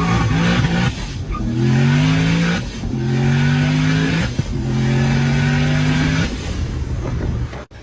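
Turbocharged Audi S4 accelerating hard through the gears: the engine's pitch climbs, then drops at each of three upshifts about a second and a half apart. Near the end the engine eases off to a steadier, quieter note, and the sound cuts off suddenly just before the end.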